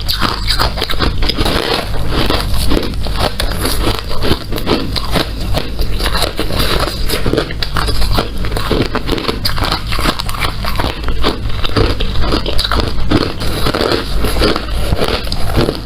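Hard ice being bitten and chewed close to the microphone: dense, continuous crunching and crackling that never lets up.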